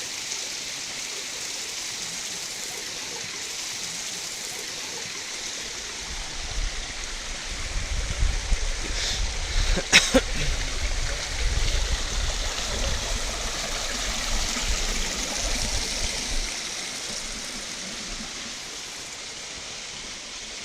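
Water running steadily, like a stream or channel flowing at the trout ponds. From about six seconds in a low rumble joins it for ten seconds, with one sharp knock near the middle.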